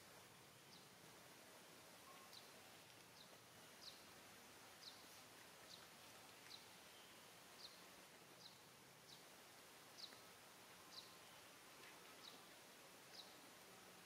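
Near silence with a faint outdoor hiss, over which a small bird gives short, high chirps, each dropping slightly in pitch, about once a second.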